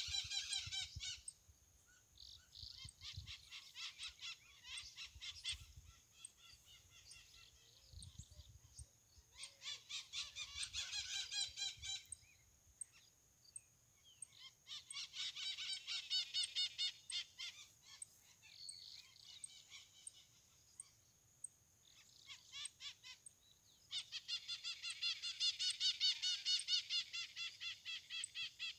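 Birds calling in bouts of rapid, repeated notes, each bout a few seconds long with quieter gaps between, four bouts in all. A faint steady high whine sits underneath, and a few soft low thumps come in the first few seconds.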